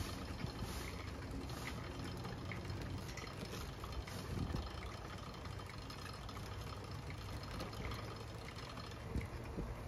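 Steady low rush of a bicycle rolling along pavement, with wind on the microphone and faint light ticks scattered through.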